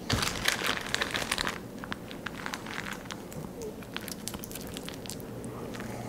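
Hands handling wiring inside an open PC case: a burst of rustling and crinkling for about a second and a half, then scattered light clicks and ticks.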